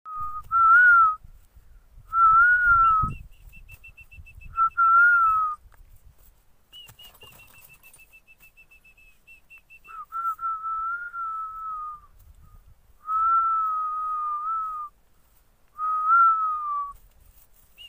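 A person whistling long, steady, slightly wavering notes, about seven of them with pauses between. Twice, between the notes, comes a quick run of short high-pitched pips, about ten a second.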